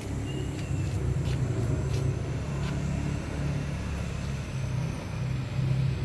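Steady low engine rumble, wavering slightly in pitch and level, with a few faint clicks.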